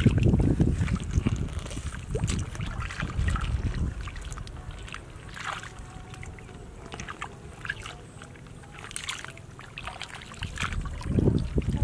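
Shallow muddy water sloshing and splashing as hands grope and bare feet wade through it among grass clumps. It is loudest in the first few seconds and again near the end, with quieter stirring and small splashes in between.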